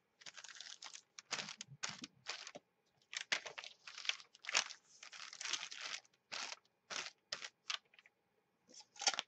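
An ink pad rubbed across notebook paper in a quick series of short scratchy strokes as a page is inked.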